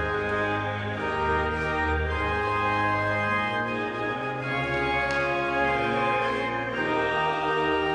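Organ music: sustained chords that change every second or so over a low bass line.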